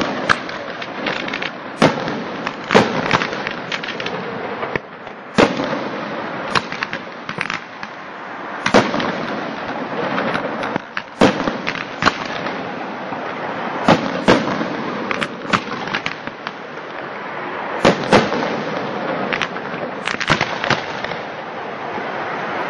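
Aerial fireworks display: a continuous hiss and crackle of shells with sharp bangs going off irregularly, every second or two.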